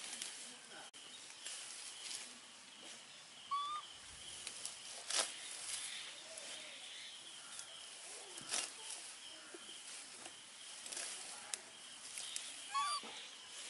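Quiet rural outdoor background with a faint steady high-pitched hum, scattered light rustles and clicks, and a few short rising squeaky calls, one about a third of the way in and a cluster near the end.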